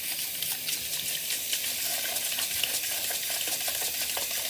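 Tap water running into a sink in a steady hiss, splashing over a hand being rubbed under the stream.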